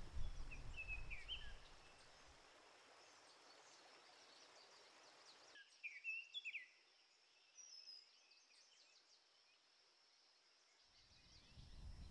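Faint bird chirps in two short bouts, about a second in and again around six seconds in, over quiet outdoor ambience that is otherwise near silence.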